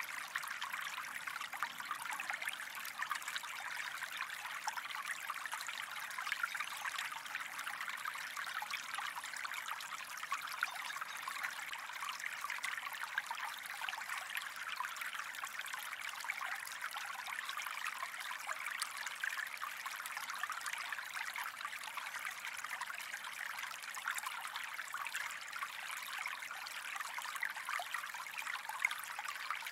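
Gentle stream flowing, a steady trickle of water that never pauses.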